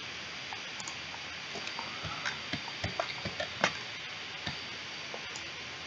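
Scattered light clicks and ticks over a steady hiss, most of them bunched in the middle.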